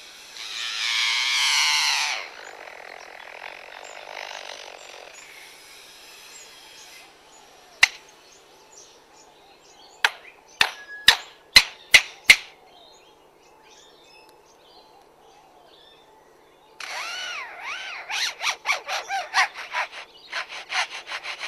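Lyrebird giving its mimicked calls. It starts with a loud rasping burst, then makes a run of about six sharp mechanical-sounding clicks, and near the end a rapid string of rising-and-falling notes.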